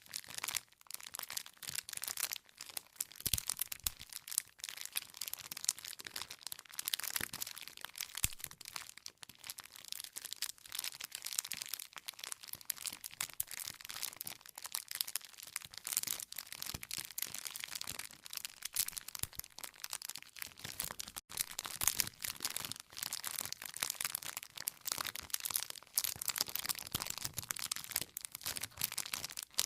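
Wood fire crackling and popping steadily, with dense irregular snaps of burning firewood.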